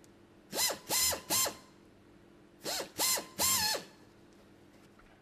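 Small electric drill run in short trigger bursts to drill small holes through a plastic bumper tab: two sets of three quick whirs, each rising in pitch as the motor spins up and dropping as it stops.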